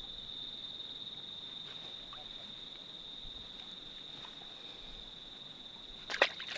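A steady, high-pitched buzz of calling insects, with a couple of sharp clicks near the end.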